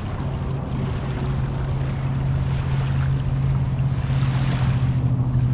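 Small waves washing onto a sandy shore, swelling a couple of times, over a steady low engine hum that grows slightly louder.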